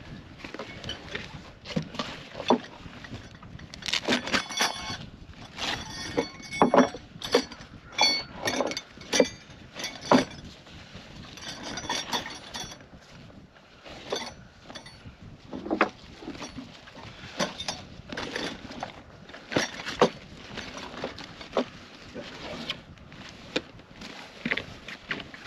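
Ice-fishing gear being handled and packed by hand: irregular knocks, rustling and small metallic clinks from straps and a nylon bag being handled on a plywood board.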